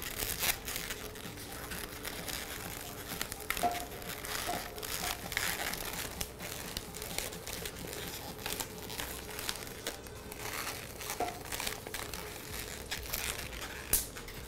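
Latex modelling balloons rubbing and squeaking against each other and the hands as they are twisted and looped into shape: a steady rustle of rubber with a few short squeaks.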